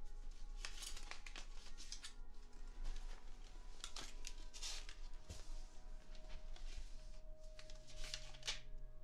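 Paper being handled, rustling and tearing in short irregular bursts.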